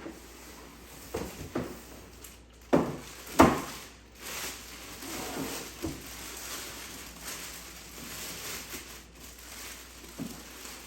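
Parts and packaging being handled while unboxing: scattered knocks and rustles, the loudest about three and a half seconds in.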